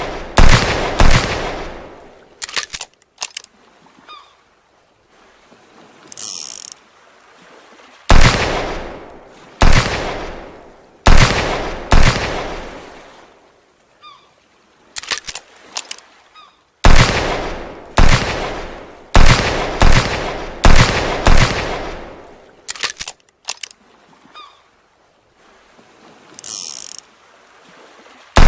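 Revolver gunshot sound effect: sharp shots with long echoing tails, in strings of about six, each string followed by a few light clicks and a brief rattle.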